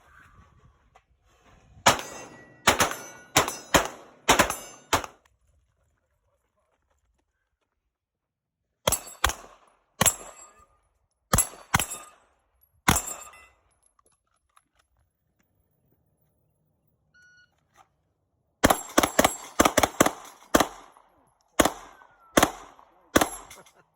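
Gunshots in three strings. The first is a quick string of about eight to nine shots about two seconds in, the second is six slower, evenly spaced shots around nine to thirteen seconds, and the third is a fast string of a dozen or so shots near the end. Each shot has a short echo.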